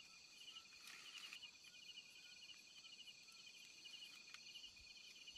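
Faint night chorus of crickets and other insects: a steady high trill with rapid, evenly repeated chirps over it.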